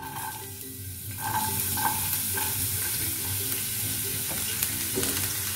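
Chopped garlic sizzling in hot oil in a nonstick kadhai, the sizzle growing louder about a second in, with a few faint ticks.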